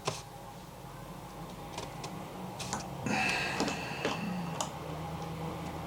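Small screwdriver working a tight propeller screw on a DJI Mini 3 Pro drone: scattered light clicks and ticks, with a brief high creak a little past halfway as the stuck screw starts to turn.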